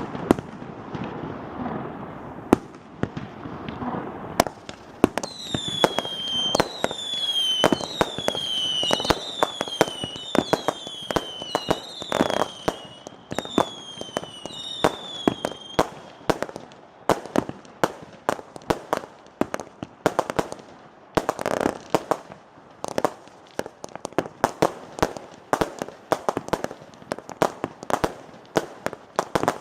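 Minotaur firework barrage cake firing a rapid string of shots and bangs. From about five seconds in to about sixteen, whistling shots join in, each a short falling whistle, about nine in a row. After that the bangs come thicker and faster.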